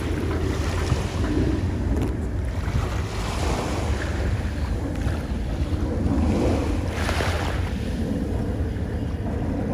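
Small waves lapping on a sandy shore, each wash swelling and fading every few seconds, with wind rumbling on the microphone.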